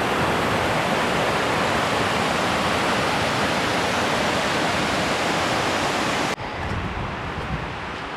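Crabtree Falls cascade rushing steadily. About six seconds in it cuts off abruptly to a quieter, lower rush.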